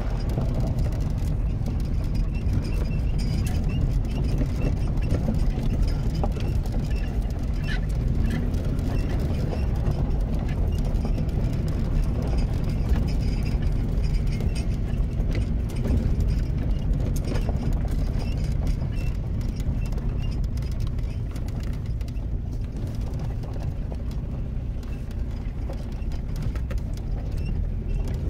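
Car driving on a dirt road, heard from inside the cabin: a steady low rumble of engine and tyres on the unpaved surface.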